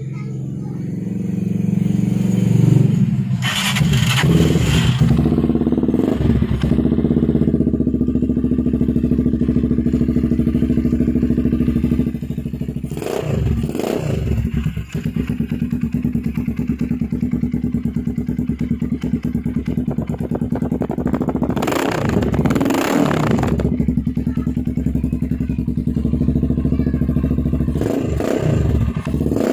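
Motorstar Explorer Z200 motorcycle engine idling through an aftermarket Yushimura racing muffler on the stock elbow pipe. The throttle is blipped four times into short revs, one about three seconds in, one near the middle, one about two-thirds through and one near the end.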